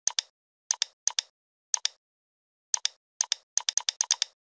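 Click sound effects in sharp pairs, each pair about a tenth of a second apart, spaced out at first and quickening into a rapid run near the end, with clean silence between them.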